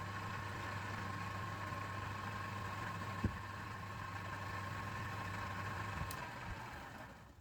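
Woodturning lathe's electric motor running with a steady hum and a thin whine, which stops about six seconds in. There is a single sharp click about three seconds in.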